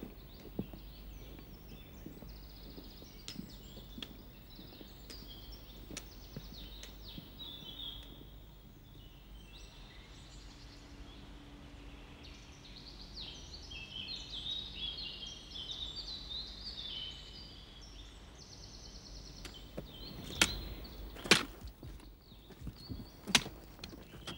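Small birds singing outdoors, a run of quick varied high notes through the middle, over a low steady rumble. Near the end come a few loud footsteps of hiking boots on a rocky trail.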